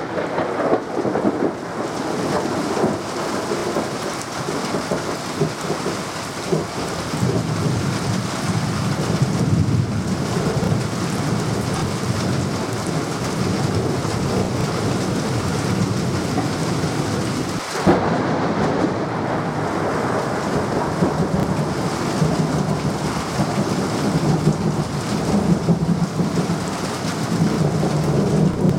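Heavy thunderstorm: steady rain with long, rolling rumbles of thunder that swell and fade. There is a brief dip in the sound a little past halfway.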